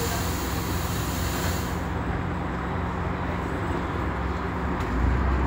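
Scania Omnidekka double-decker bus running along the road, a steady low engine hum heard from the upper deck. A hiss of air stops about two seconds in, and the low engine rumble grows louder near the end.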